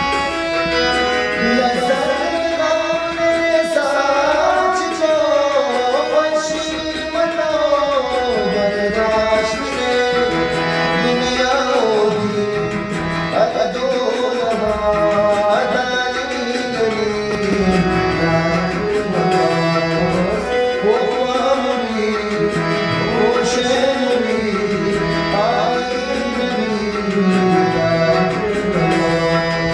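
Brahui ghazal music: harmonium with drum accompaniment, carrying a melody that slides up and down in pitch.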